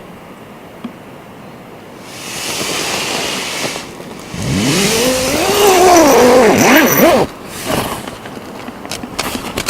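Motorcycle engine revving, its pitch rising and falling several times, after a rush of noise swells up; the engine sound cuts off suddenly, and a few sharp clicks follow near the end.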